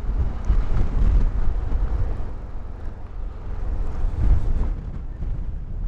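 Low, uneven rumble of a car driving, road and wind noise buffeting the microphone on a very windy day.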